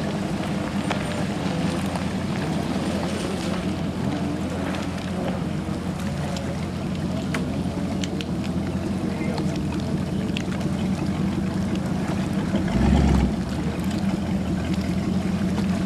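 Big-block V8 inboard engine of a ski boat running steadily at an even speed, with a deep, unchanging hum. A brief low buffet comes about three-quarters of the way through.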